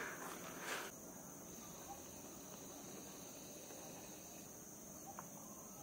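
Faint, steady high-pitched drone of insects in the jungle, holding one pitch throughout. A brief soft rustling noise comes in the first second.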